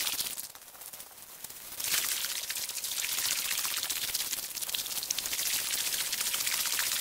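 Shallow river water splashing and sloshing around legs wading through it, with a short quieter gap about half a second in before the splashing resumes.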